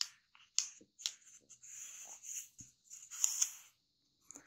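A square of kami origami paper folded in half and creased by hand: a few short paper crackles, then fingers brushing along the fold, loudest about three seconds in.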